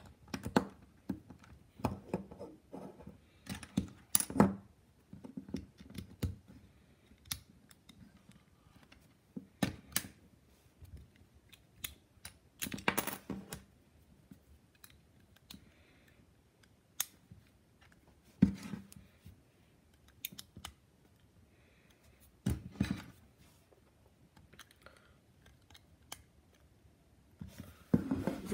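Plastic Lego bricks being handled and pressed together: irregular sharp clicks and taps with quiet gaps between them.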